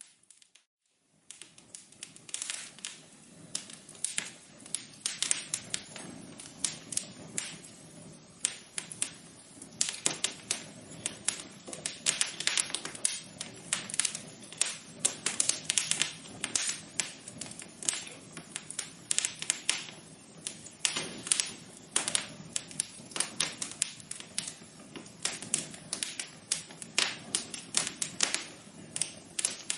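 Wood fire crackling, with irregular sharp pops and snaps several times a second over a soft hiss. The crackling starts about a second in, after a brief silence.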